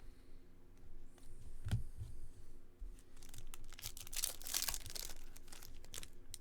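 A foil trading-card pack wrapper being torn open and crinkled, loudest about four to five seconds in, with a knock early on as cards are handled.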